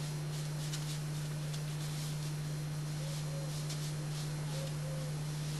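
A steady low hum, with faint soft strokes of a watercolour brush on paper.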